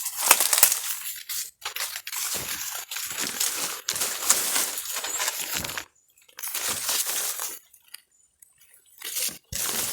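Crackling, rushing water and handling noise around an underwater camera while spearfishing, in irregular patches that cut out abruptly several times.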